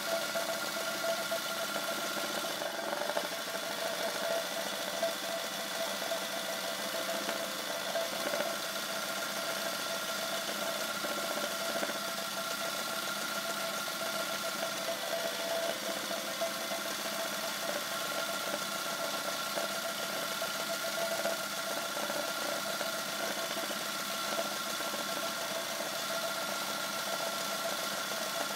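Sewing machine running steadily at speed, stitching machine embroidery as the fabric is moved by hand under the needle.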